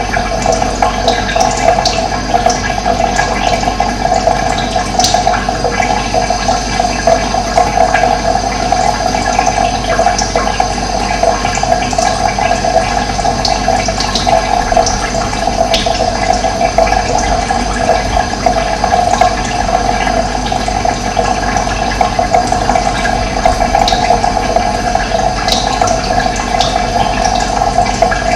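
Running water flowing steadily, a loud, even rushing with no pauses.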